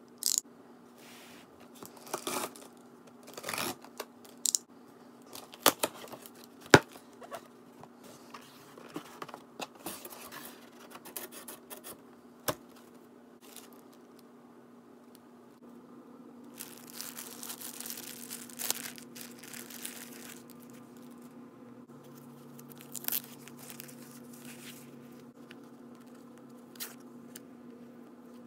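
Packing tape tearing and a cardboard shipping box being pulled open, with sharp irregular rips and snaps, then plastic packaging bags rustling and crinkling as the contents are unwrapped. A faint steady low hum lies underneath.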